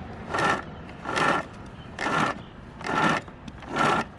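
A blade sawing through a vacuum cleaner's power cord in steady strokes, about one stroke every second, five in all.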